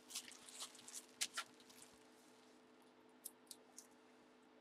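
Faint crinkling of the clear plastic wrap around a bat as it is handled and set down: a run of soft crackles in the first two seconds, then three light ticks near the end.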